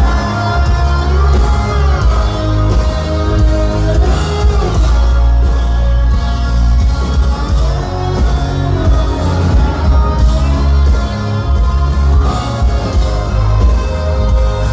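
A rock band playing live through a concert sound system: loud, steady drums and bass with a sung melody over them.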